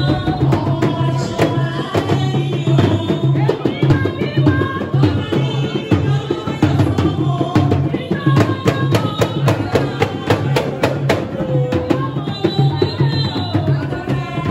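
Live drumming on tall barrel drums struck with curved sticks, with a woman's voice singing through a microphone over the beat.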